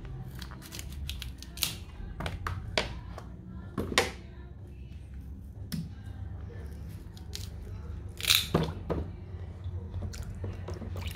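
Kitchen knife scraping and cutting the peel off a cassava root on a plastic cutting board: irregular scrapes and sharp clicks, with a few louder ones.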